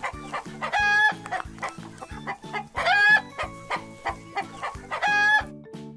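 A hen clucking, with three louder drawn-out calls about two seconds apart, over background music with a steady beat.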